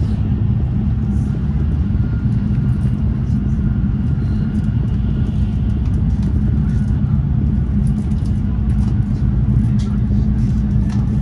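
Steady low rumble of a Shinkansen high-speed train running at speed, heard inside the passenger car, with faint scattered ticks over it.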